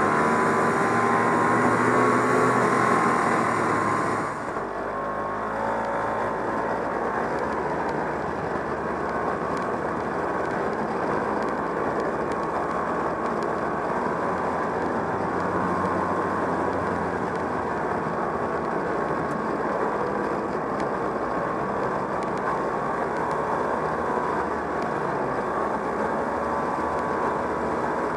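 1969 Polaris Mustang snowmobile's JLO 372 two-stroke engine running under way, its pitch wavering a little with the throttle. About four seconds in, the sound turns duller and a little quieter.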